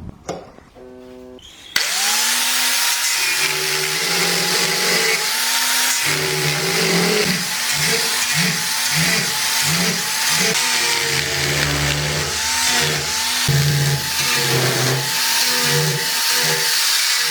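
Electric power tool working on the steel of a sword blade. It starts abruptly about two seconds in and runs with a dense hissing grind, its motor whine wavering in pitch.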